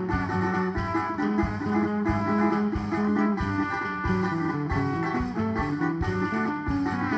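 A band plays an instrumental break in a bumba-meu-boi toada: a plucked guitar melody over bass and a steady percussion beat.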